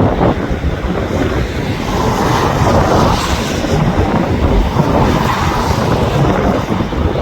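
Loud wind buffeting the phone's microphone: a dense, gusty noise.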